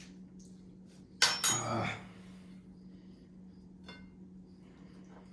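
Dishes clinking: one loud, sudden clatter just over a second in that dies away within about a second, then a single light clink near four seconds in.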